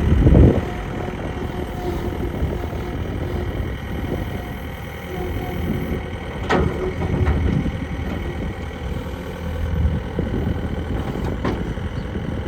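John Deere 313 skid steer engine running steadily, with a few sharp clanks midway and near the end.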